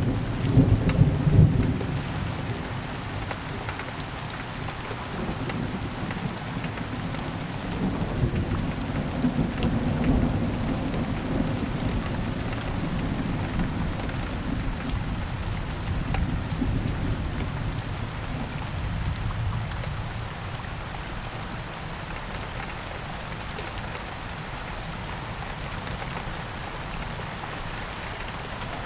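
Steady rain falling, with a low thunder rumble that is loudest in the first two seconds, rolls again around a third of the way in, then fades, leaving the rain alone.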